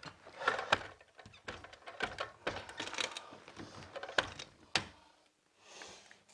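Irregular sharp clicks, taps and scratches of carpet being pressed down and worked onto the tack strip along the wall with a hand tool. The clicking dies away about five seconds in.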